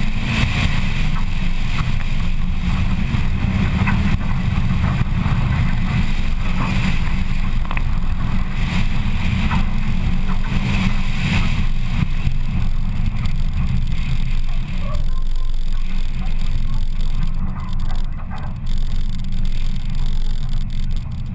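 Rallycross car's engine running under hard throttle with tyre and gravel noise over a dirt course, heard from inside the car, with short knocks from bumps and stones. About 15 seconds in it eases off and grows quieter as the car slows off the course.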